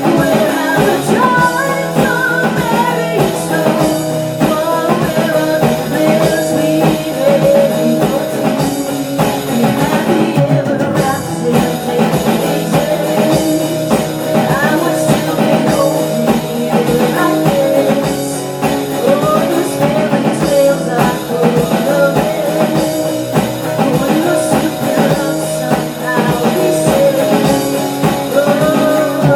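Pop-rock song with a sung lead vocal over guitar and drum kit.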